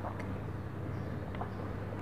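A steady low hum under background hiss, with a few faint small clicks.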